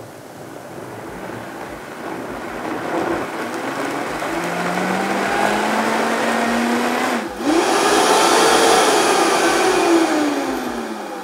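High-powered countertop blender pureeing grilled kabocha squash with water. The motor speeds up gradually, its whine climbing in pitch and loudness, with a brief break about seven seconds in. It then runs at full speed and winds down near the end, the pitch falling.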